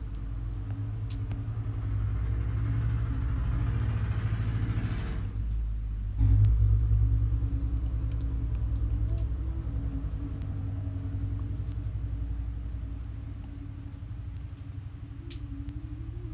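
A loud, steady low rumble. It jumps suddenly in loudness about six seconds in, and a hiss above it stops just before.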